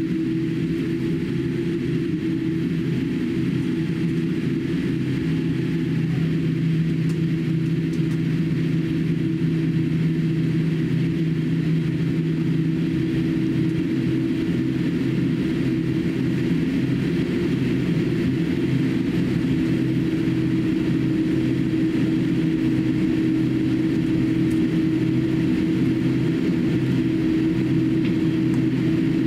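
Cabin noise of a Boeing 787-8 taxiing, its GEnx engines at low taxi power: a steady hum made of several held tones over an even hiss. A lower tone comes in about five seconds in and drops out about eight seconds later.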